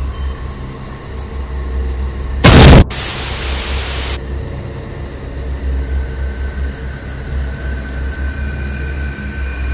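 Horror-trailer sound design: a steady low drone, broken about two and a half seconds in by a very loud sudden hit and then about a second and a half of static hiss. The drone then carries on with faint high tones over it.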